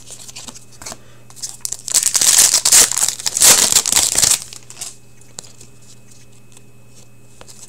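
Foil wrapper of a hockey card pack being torn open and crinkled: a loud crinkling burst lasting about two seconds, starting about two seconds in, with light card handling before and after.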